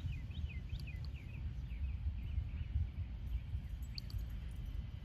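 Outdoor wind rumbling on the microphone, with a small bird giving a quick run of short, falling chirps through the first half and a faint click about four seconds in.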